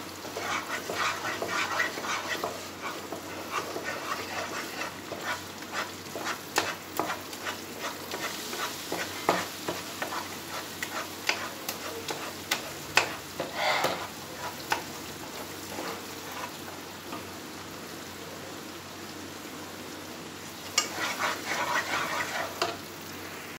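A wooden spatula stirs and scrapes thick peda mixture in a nonstick kadhai, with repeated clicks against the pan over a soft sizzle of the cooking mixture. A busier patch of stirring comes near the end. The mixture has thickened into a dough that no longer sticks to the pan.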